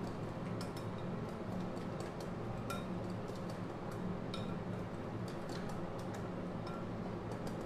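A metal spoon stirring a thick marinade in a glass bowl, ticking and clinking irregularly against the glass, over a steady low hum.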